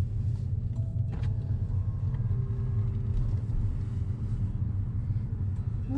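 Steady low rumble of a vehicle engine running, with faint higher tones over it.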